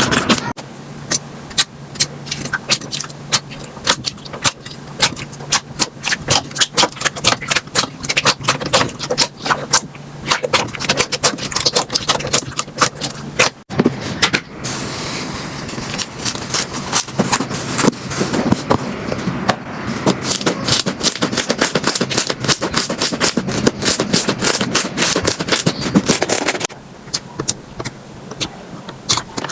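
Slime being squeezed and pressed by hand, making a rapid, irregular run of crackling pops and clicks. The sound changes abruptly about halfway through and again near the end.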